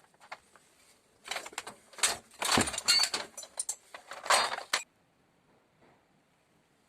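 A run of short knocks, scrapes and rattles from hard objects being handled, loudest between about one and five seconds in, then stopping.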